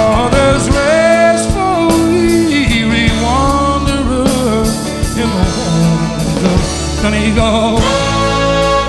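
Background music: a song's melody line sliding between notes over a steady beat.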